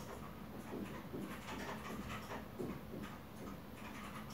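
Quiet shop ambience: faint low background noise with a few faint, irregular small sounds and no clear voice.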